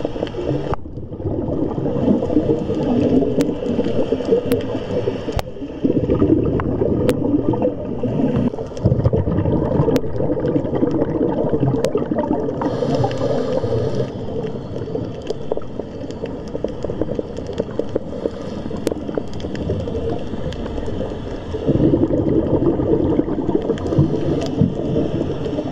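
Underwater ambience: a steady low rush and gurgle of moving water, with scattered sharp clicks. The sound changes abruptly about a second in, about five seconds in and near the end.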